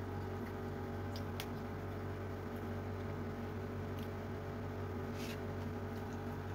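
A person eating rice and fish with her fingers: a few short, faint mouth clicks while chewing, over a steady low hum.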